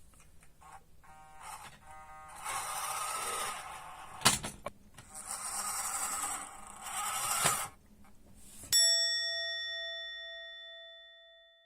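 A single bell-like ding about nine seconds in, ringing out and fading over about three seconds. Before it come soft hissing and whirring sounds and one sharp click about four seconds in.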